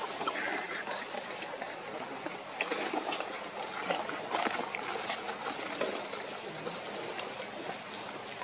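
Steady outdoor background: an even hiss like a trickling stream, with a constant high-pitched whine over it and a few faint ticks.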